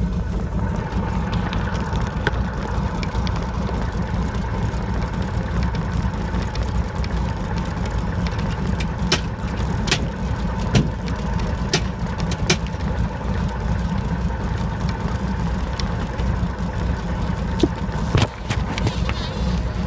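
Light aircraft engine and propeller running steadily, heard from inside the cabin of a high-wing floatplane on the water, with a few sharp clicks in the middle.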